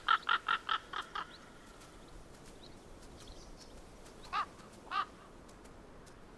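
A crow-like bird calling: a quick run of about seven harsh calls in the first second or so, then two single calls about half a second apart.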